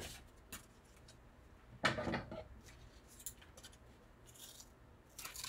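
Scissors cutting cardboard: a few quiet snips and scrapes, the loudest lasting about half a second about two seconds in.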